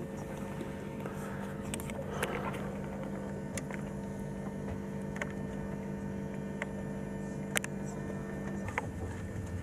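Running noise inside a moving passenger train: a steady hum with a lower droning tone that drops away near the end, and scattered sharp clicks.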